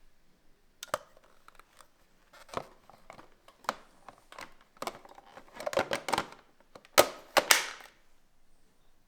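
Irregular plastic clicks, knocks and scrapes as the EZVIZ RH1 floor cleaner's clean water tank is handled for filling, with the sharpest click about seven seconds in followed by a short rushing noise.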